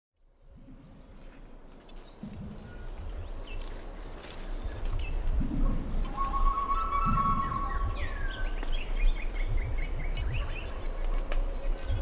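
Nature ambience fading in over the first few seconds: a steady high insect drone with birds chirping and whistling, and intermittent low rumbling underneath.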